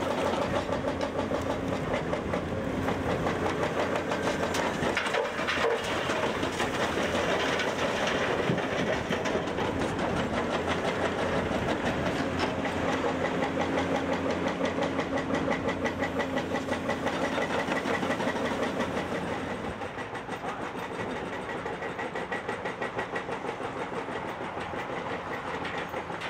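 Excavator's diesel engine running with a rapid rhythmic clatter, turning quieter about twenty seconds in.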